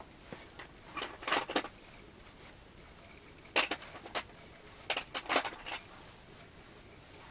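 Light clicks and clinks in three short clusters, about a second, three and a half seconds and five seconds in.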